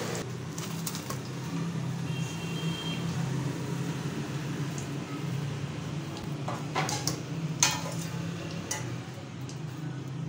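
A few sharp clinks of a wire frying skimmer and a plate against a steel karahi, the loudest about seven and a half seconds in, over a steady low hum and the faint sizzle of hot frying oil.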